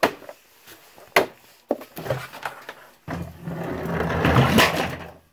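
A few sharp knocks and clicks as a container is handled and opened, then about two seconds of scraping and rattling as its contents are shifted about, growing louder near the end.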